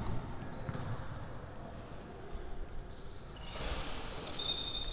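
Basketball being bounced on an indoor court, with a few dull thumps and short high sneaker squeaks from the players, echoing around a large sports hall.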